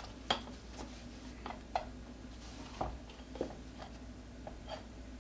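Irregular light clicks and knocks, about eight of them, from tire spoons and hands working a 6.5-inch scooter tire off its metal rim. A steady low hum runs underneath.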